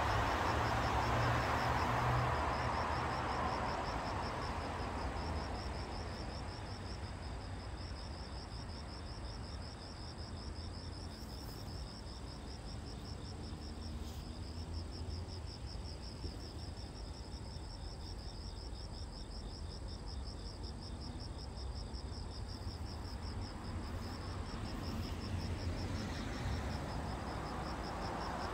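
Insects, likely crickets, chirping in a steady, rapid even pulse throughout. A broad rushing noise fades out over the first few seconds and rises again near the end, over a constant low rumble.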